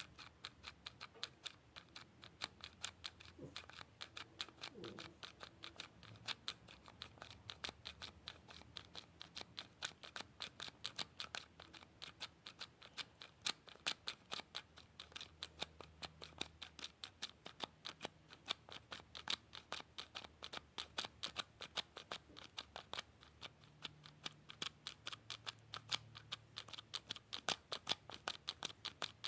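Close-up ASMR clicking: a steady run of sharp, crisp clicks at about three a second, made by some small object worked by hand.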